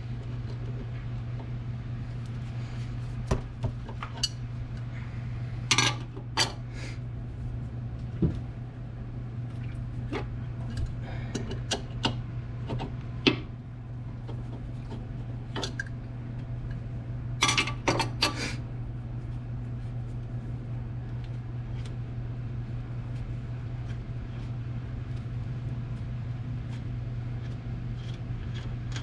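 Scattered metallic clinks and clanks of wrenches on hydraulic hose fittings as hoses are swapped on the skid steer's gear pumps, with a small cluster about six seconds in and a louder cluster a little past the middle, over a steady low hum.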